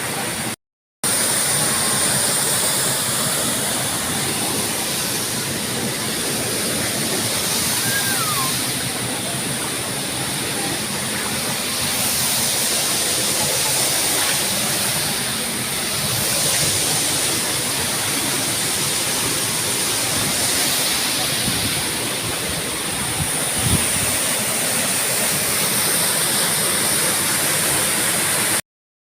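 Waterfall and river water rushing steadily, a close, even roar of falling water.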